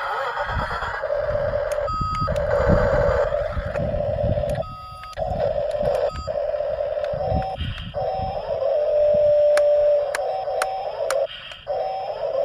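Excavator-type machinery running with a steady whine. The whine cuts out briefly several times, and some restarts carry a short rising pitch, under an irregular low rumble.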